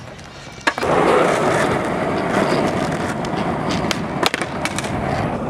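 Skateboard wheels rolling steadily on asphalt, starting after a single knock. About four seconds in comes one sharp clack as the board lands a flip trick, then it rolls on.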